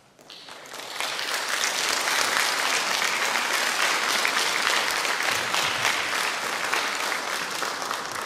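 Audience applauding, swelling within the first second and beginning to die away near the end.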